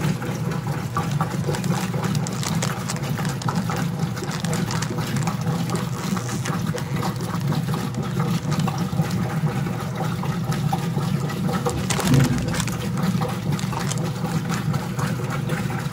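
Whirlpool direct-drive top-load washing machine running steadily near the end of its rinse cycle: a low motor hum with water sounds in the tub. There is a brief louder bump about twelve seconds in.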